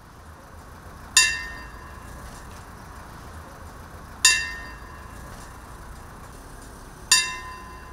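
A clock-tower bell struck three times, about three seconds apart, each strike ringing out and fading, over a steady low hum.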